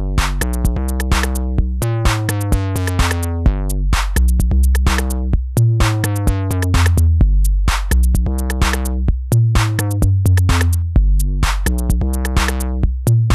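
808-style drum-machine beat in Native Instruments Maschine: a deep 808 kick-drum bassline driven through a saturator effect, each note starting with a falling pitch and rich in added overtones, under quick, regular drum-machine ticks. The overtones swell and thin as the saturator amount is turned by hand.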